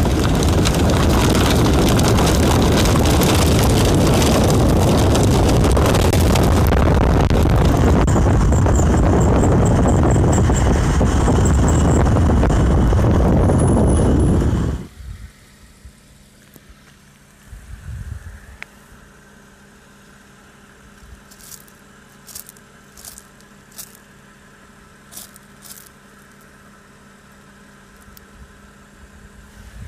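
Loud rushing wind and road noise on a phone microphone carried along the road by a moving vehicle. It cuts off abruptly about halfway through, leaving a faint steady hum and a few scattered light clicks.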